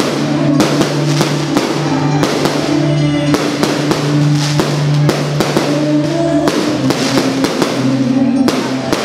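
Music with a steady drum beat and a held low bass line that changes note every second or so.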